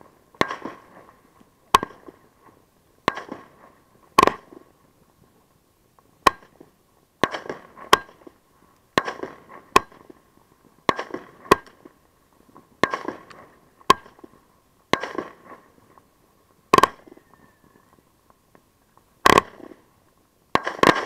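Consumer fireworks firing close by: a series of sharp bangs, about one a second with some gaps, each trailing off in a brief crackling hiss.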